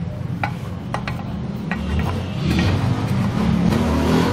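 Oiled metal crank arm of a donkey pump rubbing and scraping as it is worked back and forth inside the bore of the cast pump housing, with a few light metallic clicks, to test that it now goes in freely after grinding. A low steady drone runs underneath.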